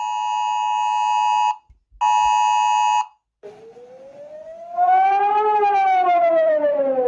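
Emergency alert tones. A steady two-tone attention signal sounds in two blasts, the first about a second and a half long, then a wailing siren that rises in pitch for about two seconds and falls again, getting louder as it climbs.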